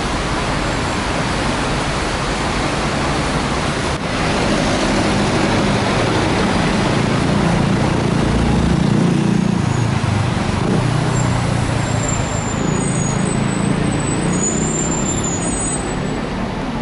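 Steady city traffic on a wet multi-lane avenue: cars and motorcycles passing, engine rumble under a hiss of tyres on wet road, swelling loudest around the middle. A thin high squeal sounds on and off over the last few seconds.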